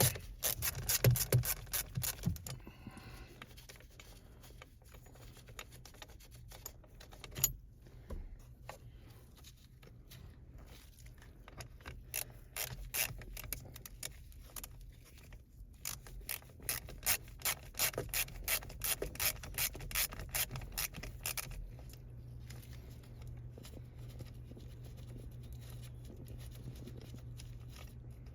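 A hand ratchet clicking as T25 Torx bolts on a steering-wheel paddle-shifter bracket are loosened and backed out. There are runs of quick clicks, with rubbing and scraping of tool and trim between them. In the last few seconds only a low steady hum remains.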